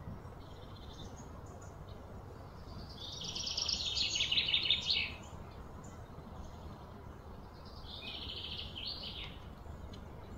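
A fast, high-pitched pulsing trill from a small animal, lasting about two seconds and stopping abruptly, then a shorter, fainter one near the end, over a steady low outdoor rumble.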